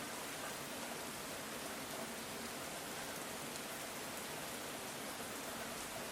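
Steady rain falling on the ground: an even hiss of many drops with faint scattered patters.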